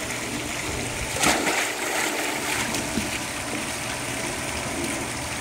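A child jumping into a swimming pool: one splash about a second in, followed by steady water sounds as she moves in the water.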